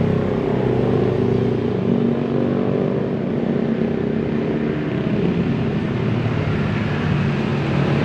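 Bus engine running as a bus drives past, a steady loud drone with shifting pitched tones.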